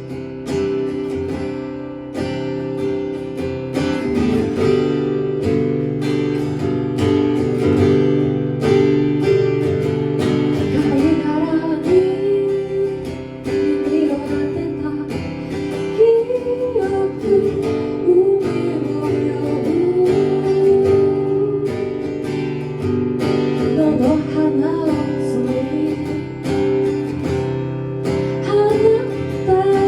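Live acoustic guitar music: strummed chords held steadily, with a wavering melody line coming in above them about ten seconds in.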